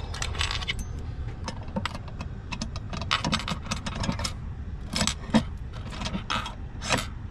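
A ring of keys jangling, with a run of short metallic clinks as a key is worked in a Paclock steel puck lock.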